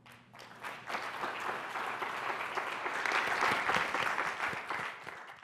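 Audience applauding, swelling over the first couple of seconds and then cut off abruptly at the very end.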